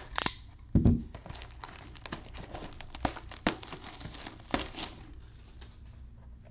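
Plastic shrink wrap crinkling and tearing as a sealed box of trading cards is unwrapped, with a dull knock of the box about a second in.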